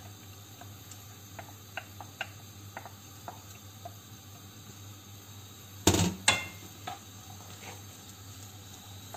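Chopped red onion tipped into hot olive oil in a non-stick frying pan and stirred with a wooden spoon: faint sizzling with scattered light clicks, and two sharp knocks about six seconds in.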